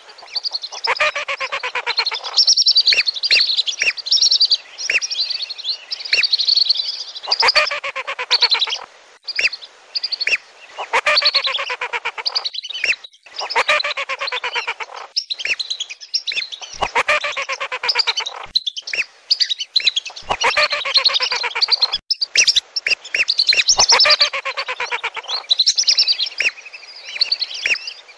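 Lure recording of whistling ducks (lesser and wandering whistling ducks) calling as a flock: high whistles and rapid chattering runs of notes. They come in phrases of about two seconds, with short breaks between them. This is a pikat call used to draw wild whistling ducks in.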